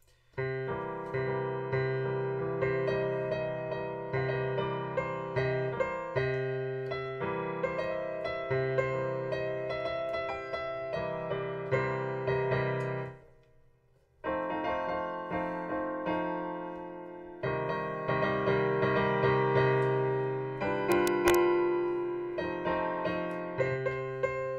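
Piano playing a run of melody notes over low held bass notes, demonstrating the sound of the pentatonic and blues scales. The playing breaks off for about a second roughly 13 seconds in, then carries on.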